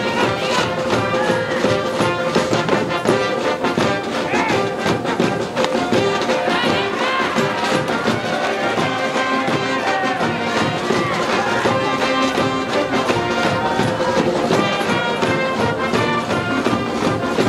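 School brass band playing a baseball cheering song: trumpets, trombones and saxophones over drums, with a steady beat.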